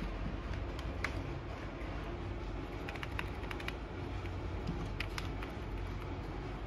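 A few scattered light clicks from hands handling a computer keyboard and test probes, over a steady low hum.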